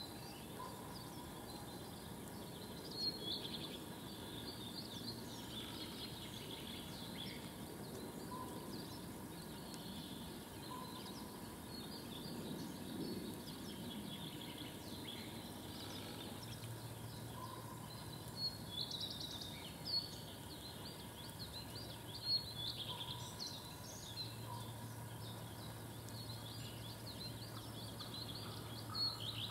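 Scattered bird calls and song over a steady outdoor background hiss, a few calls standing out louder. A low steady hum joins about halfway through.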